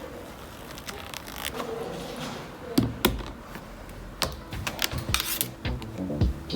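Irregular sharp clicks and knocks, like small hard objects being handled, getting busier and louder from about three seconds in.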